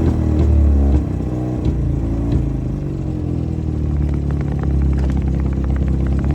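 Honda outboard engine running without load; its revs drop about a second in, then it runs steadily, with a fast, light ticking toward the end.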